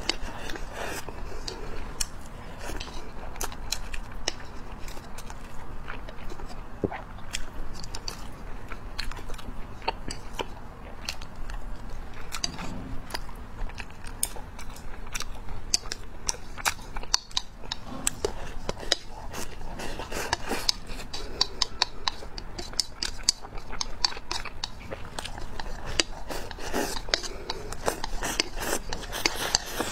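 Chewing mouthfuls of rice, with many sharp clicks of chopsticks against a ceramic rice bowl.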